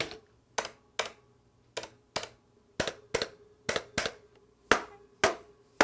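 Keys on a Logitech G Pro tenkeyless mechanical keyboard with Romer-G tactile switches being struck one at a time: about a dozen dull, separate clacks at an irregular pace, each followed by a short hollow ring from the keyboard's case.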